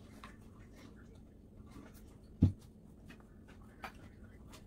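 Faint eating sounds of a person biting and chewing steamed corn on the cob, with scattered small mouth clicks and one short low thump about halfway through.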